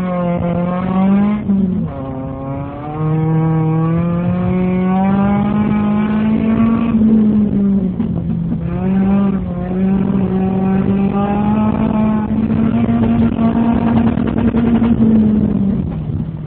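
2003 Toyota Celica GT's 1.8-litre four-cylinder engine worked hard, its pitch climbing and dropping several times as the throttle is pressed and lifted, heard from inside the cabin.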